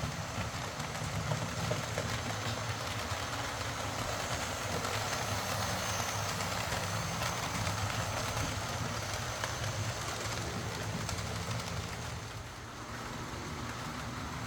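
Lima OO gauge Class 55 Deltic model locomotive running on the track, a steady motor-and-gear hum with wheel rumble that eases briefly about twelve seconds in. It has just been serviced and is running fine.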